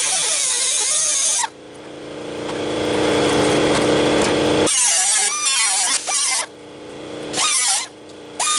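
Air-powered cutting tool cutting out rusted sheet-metal floor pan, run in bursts: one cut stops suddenly about a second and a half in, then a long cut and two short ones follow. Its pitch wavers under load. Between the cuts an air compressor runs steadily.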